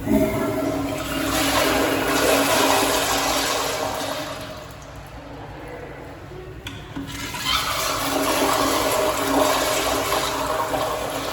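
A 2002 Crane Plumbing toilet flushing: a loud rush of water starts at once, eases off about halfway through, then rushes again for a few seconds before fading near the end.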